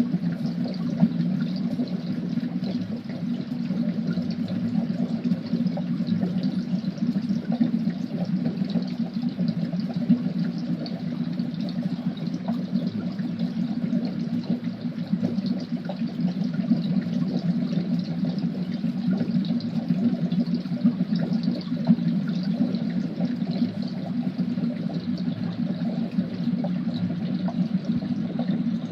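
Thick liquid bubbling steadily in a boiling cauldron, a dense run of small pops over a low bubbling churn.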